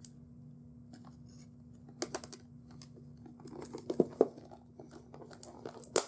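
Plastic packaging being torn open and crinkled by hand as a bubble-wrapped package is unwrapped: scattered crackles and sharp tearing clicks starting about two seconds in and growing busier toward the end.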